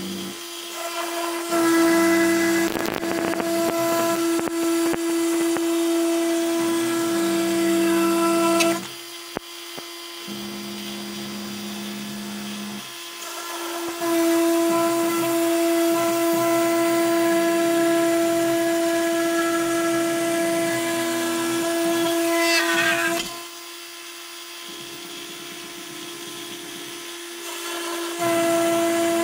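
Spindle motor of a mostly printed CNC (MPCNC) router running a cutting job in a wooden board, a steady whine with a lower stepper-motor tone coming and going. The loud whine drops away twice for several seconds and then returns.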